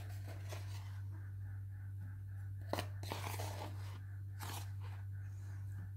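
A whisk folding flour into egg-and-sugar cake batter in a glass bowl: a few soft, crunchy scrapes in the middle part, over a steady low hum.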